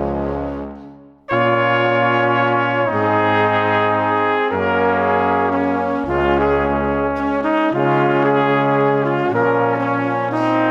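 Background music: sustained brass-sounding chords that change every second or two. The music fades out and starts again just over a second in.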